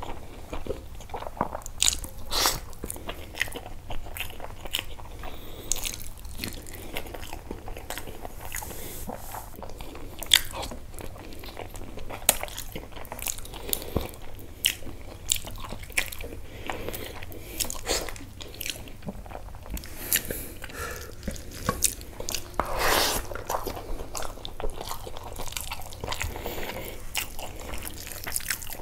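Close-up eating sounds of a person biting and chewing bone-in mutton curry: a dense, irregular run of short wet clicks and bites, with a louder stretch of chewing about three-quarters of the way through.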